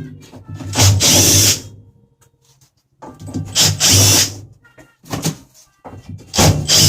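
Power drill-driver run in three short bursts, each about a second long, backing screws out of a top-loading washing machine's housing during disassembly.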